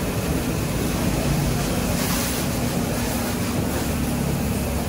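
Pressure washer running: a steady motor hum under the hiss of the water spray, the hiss swelling briefly about halfway through.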